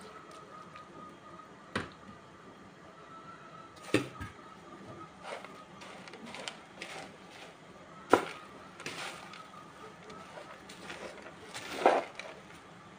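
Wooden spoon stirring and tossing squares of trida pasta in a pot: soft rustling and clatter, with four sharper knocks of the spoon spread a few seconds apart.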